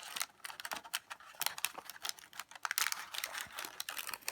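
Rapid, irregular clicking and crackling of something small being handled.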